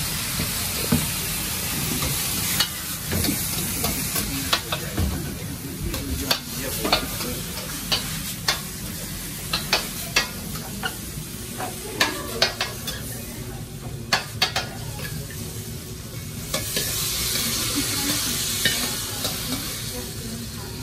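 Stir-frying in a steel wok over a gas burner: steady sizzling, with the metal ladle clanking and scraping irregularly against the wok through the middle. The sizzling grows louder near the end.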